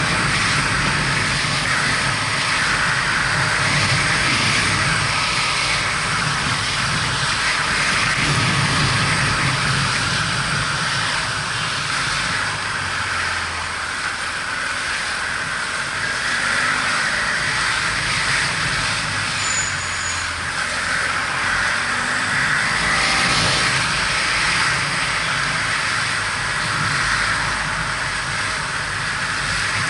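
Wind rushing over a helmet-mounted action camera and a BMW F700GS's parallel-twin engine running steadily under way, its low pitch dipping and rising a few times with changes in speed.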